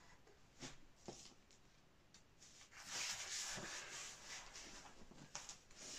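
Large sheets of print paper sliding and rustling as prints are moved off a stack: faint, with a soft sliding hiss about three seconds in that lasts a second or so, and a few light taps of paper.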